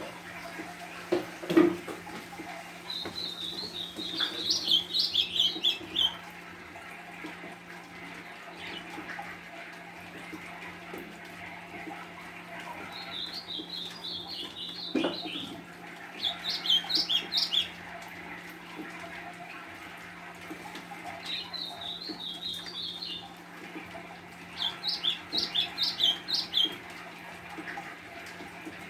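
A golinha (white-throated seedeater) singing five short, quick twittering phrases over a steady hiss of rain. There are two sharp knocks, one about a second and a half in and another near the middle.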